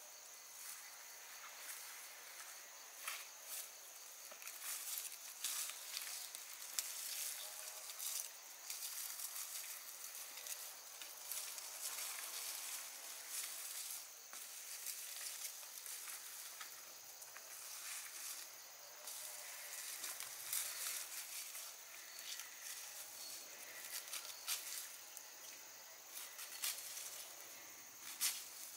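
Grass and weeds rustling and crackling in irregular bursts as they are pulled up and handled by gloved hands, over a steady high hiss.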